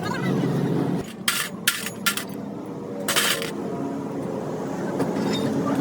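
Several short metallic knocks and clatters from repair work on a truck axle, over a steady engine hum, with a longer noisy burst about three seconds in.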